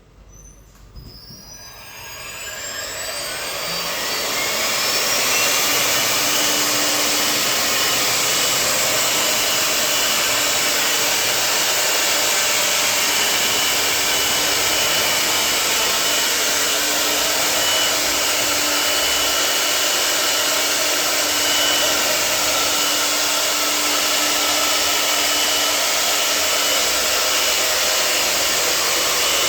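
CNC router spindle spinning up, its whine rising over the first few seconds, then running at speed with a steady high whine and a loud, even rush of air.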